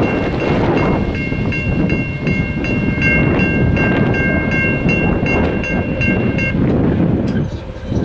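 Safetran Type 3 electronic crossing bell ringing about three strikes a second over the steady rumble of a passing train. The bell stops about six and a half seconds in, as the crossing clears and the boom gates start to lift.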